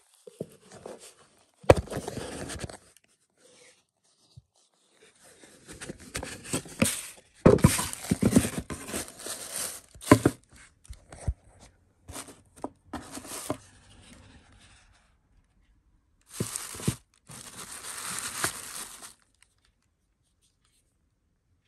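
Paper and cardboard packaging rustling and crinkling as a gift box is unpacked by hand, including its shredded paper fill, in several bursts with sharp crackles; it stops a couple of seconds before the end.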